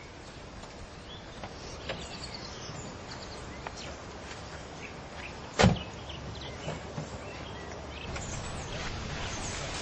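Steady background noise with scattered faint clicks and short high chirps, and one sharp knock a little past halfway.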